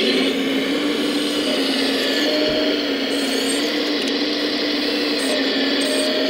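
Electric hydraulic pump of a 1:14-scale RC hydraulic model running with a steady whining hum. Its pitch steps slightly up and down several times.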